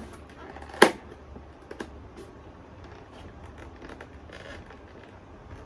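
Hands handling paper and adhesive tape: a sharp click about a second in, a smaller one a second later, then light ticks and a brief rustle.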